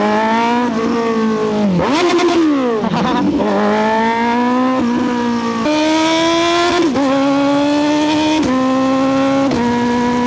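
Kawasaki Z900SE's 948 cc inline-four engine and exhaust pulling hard through the gears while riding. The pitch climbs in several runs, each broken by a sudden step at a gear change.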